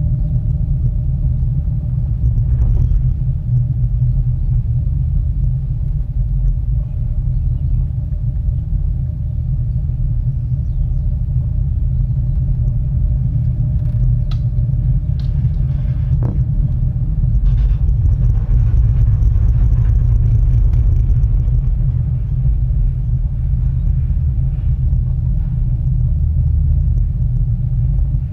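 Steady low rumble and faint hum inside a ropeway gondola cabin running along its cable, with a few light clicks about halfway through.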